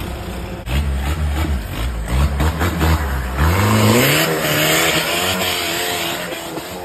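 Off-road 4x4 buggy's engine revving hard as it climbs out of a dirt hole. The revs climb steeply about three and a half seconds in and hold high while the spinning tyres spray dirt, then ease off near the end.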